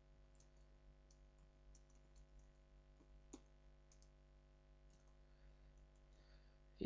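Faint, irregular computer keyboard keystrokes from typing, over a steady low hum.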